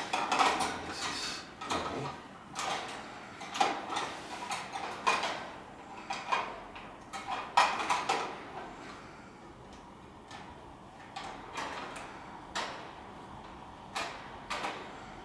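Parts of a metal wire birdcage clinking and knocking as they are handled and fitted together during assembly, a run of irregular clicks that are busy at first and thin out to a few scattered knocks after about nine seconds.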